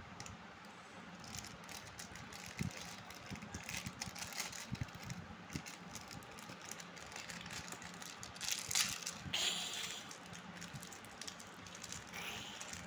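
Foil-lined plastic candy packet crinkling and crackling in the hands as it is worked and torn open, many small crackles throughout, with a louder burst of crackling about eight to nine seconds in.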